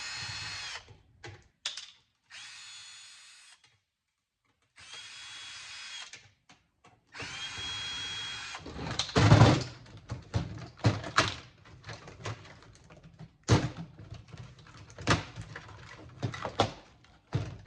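Cordless drill-driver run in four short bursts of about a second each, taking out the screws that hold a circuit board's audio and video connector in an equalizer's metal case. It is followed by a string of knocks and clicks as the metal parts are handled, the loudest about nine seconds in.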